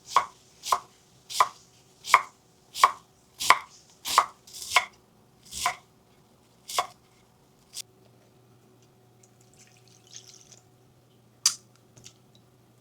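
Kitchen knife chopping cabbage on a cutting board: about ten even cuts, a little under a second apart, then one more sharp knock near the end.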